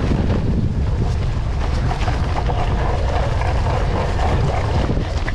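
Wind rumbling on a handlebar-mounted camera's microphone as a cyclocross bike rolls fast down dirt and onto sand, with tyre noise and small rattles from the bike.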